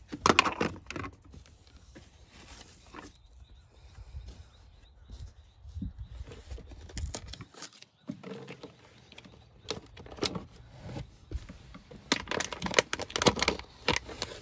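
Hands rummaging under a car seat and pulling out trash: irregular rustling and crinkling of wrappers and scraping on the carpet, with dense clusters of sharp clicks about a second in and again near the end.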